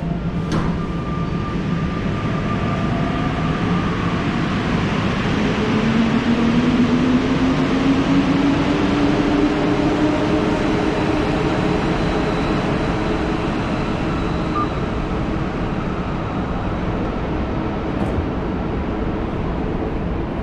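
A metro train underneath the station, its motors whining upward in pitch as it gathers speed and then holding a steady tone, over a loud steady rumble. A sharp click about half a second in.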